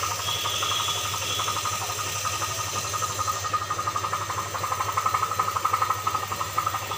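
A machine running steadily with a fast, even pulse.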